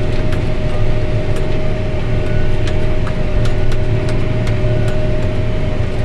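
John Deere tractor's engine running steadily under load, driving a Krone baler picking up a windrow of hay, heard inside the tractor cab, with a steady whine and scattered sharp clicks and ticks.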